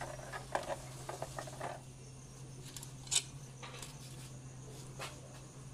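Light plastic clicks and taps as the LED board and plastic front cover of a solar floodlight are handled, with one sharp click about three seconds in. A steady low hum runs underneath.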